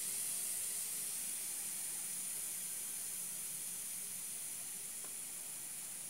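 Steady hiss of air and refrigerant being pushed out of an open line by the refrigerator's running compressor as the system is pumped down toward a vacuum. A faint low compressor hum runs underneath, and the hiss fades slowly.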